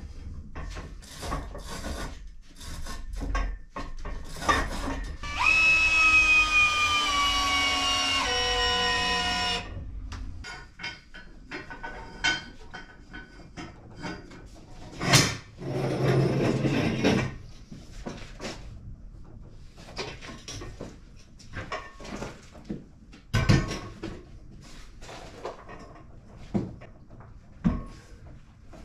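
Metal clanks and knocks of adjustable steel ceiling props being handled and set in place. About five seconds in, a steady high whine sounds for about four seconds and steps down in pitch near its end; a few sharper knocks come later.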